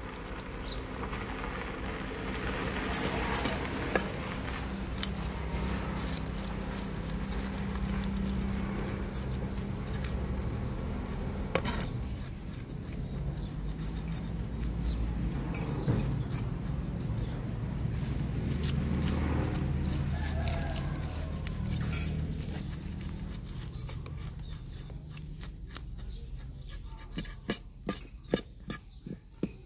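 Kitchen knife scraping scales off a fish on a wooden chopping block, scratchy and irregular over a low background hum. In the last few seconds the knife strikes the block in a quick run of chops that grow louder.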